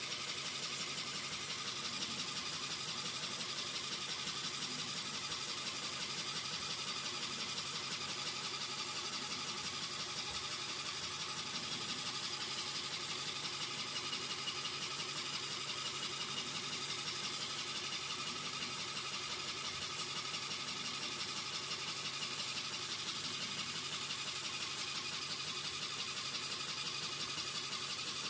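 Small LEGO electric motor driving a pneumatic pump, running steadily with a fast, even rattle as it keeps the air supply charged.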